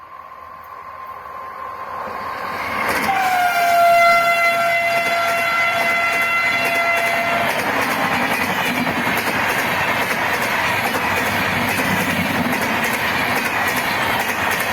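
A WAP4 electric locomotive approaches and sounds its horn for about four seconds as it passes, the horn's pitch dropping slightly at the start. Then the train's LHB coaches run past at speed with a steady roar and the rhythmic clickety-clack of wheels over rail joints.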